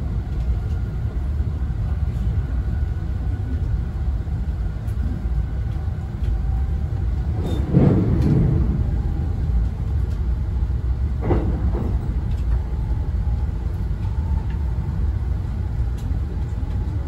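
Steady low rumble of the Saphir Odoriko, a JR East E261 series electric express train, running at speed, heard from inside the passenger cabin. A louder rushing swell comes about eight seconds in, and a shorter one about three seconds later.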